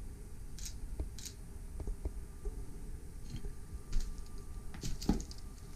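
Faint scattered clicks and knocks over a low rumble, the sharpest knock about four seconds in.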